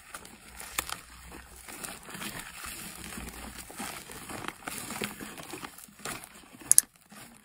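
Thick fluffy slime being stirred and pulled apart in a bowl: a dense, irregular run of small sticky clicks and crackles, with one sharp pop near the end before the sound stops abruptly.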